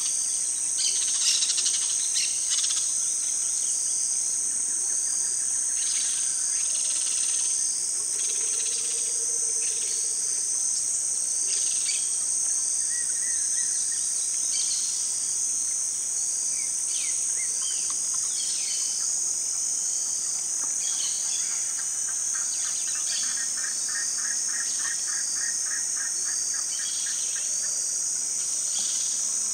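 Steady high-pitched insect drone, over repeated short scratching and rustling in dry leaves and soil as a nine-banded armadillo roots with its snout and claws. A fast pulsed trill comes in for several seconds about three-quarters of the way through.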